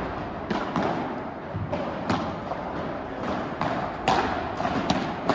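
Padel rally: a string of about ten sharp, irregularly spaced knocks as the ball is struck by rackets and bounces off the court.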